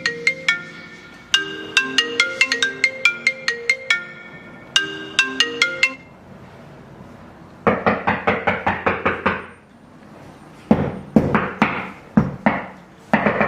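A marimba-like ringtone melody plays in repeated short phrases for about six seconds. After a pause comes a quick burst of rapid knocking, then slower separate knocks, as on a door.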